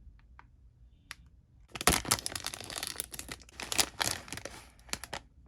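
Plastic toy bag crinkling and crackling as it is handled and torn open. It starts about two seconds in, after a few faint clicks.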